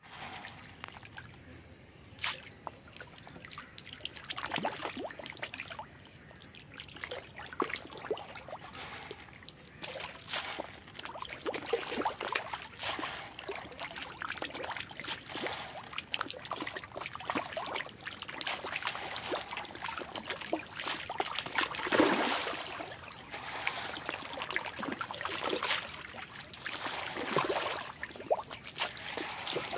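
Fish feeding at the water surface, with irregular small splashes and slurps as they take floating feed pellets; one louder splash about two-thirds of the way through.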